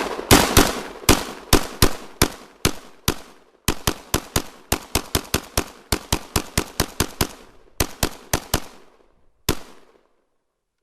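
Century Arms PAP M92, a 7.62x39mm AK-pattern pistol, fired in rapid semi-automatic strings, about thirty sharp shots with a short ringing tail after each. The pace quickens to about four or five shots a second partway through, then a single last shot comes near the end.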